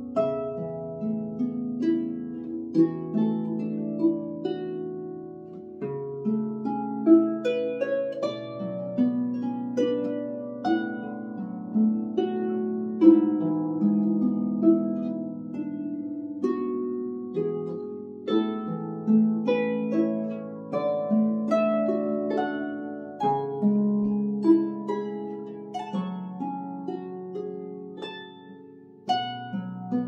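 Lever harp played solo: a melody of plucked, ringing notes over held lower bass notes, growing softer near the end before a stronger plucked note.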